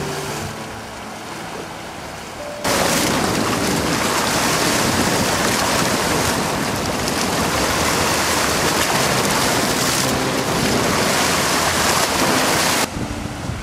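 Loud steady rushing noise of wind or water that cuts in abruptly about three seconds in and stops just as abruptly near the end, with faint music underneath.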